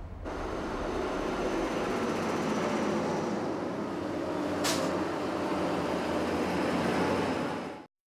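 Heavy road vehicles running, with steady engine and road noise and a brief hiss a little past the middle; the sound cuts off abruptly near the end.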